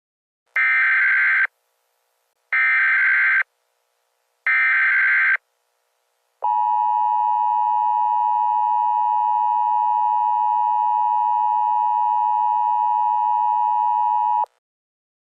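Emergency Alert System tones: three one-second bursts of SAME digital header data, about a second apart, then the steady two-tone EAS attention signal for about eight seconds, cutting off sharply. Together they mark the start of a new emergency alert message.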